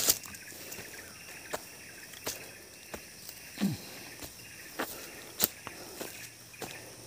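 Footsteps of a hiker climbing a steep dirt trail, irregular sharp steps every half second to a second, over a steady high-pitched chorus of insects.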